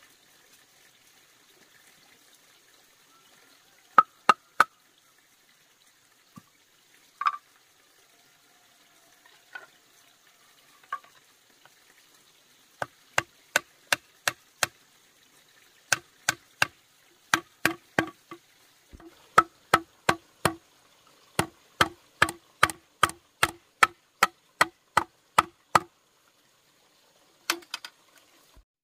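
Repeated sharp strikes on wood: a few scattered knocks, then steady runs of blows at about three a second, each with a short hollow ring.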